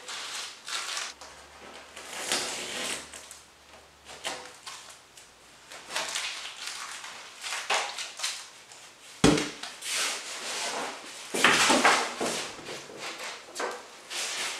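Green painter's tape being ripped off the glued joints of a pink foam kayak hull and crumpled in the hands, in a series of short noisy rips and rustles, with a single knock about nine seconds in. Near the end the large foam hull rubs and shifts as it is lifted off the table.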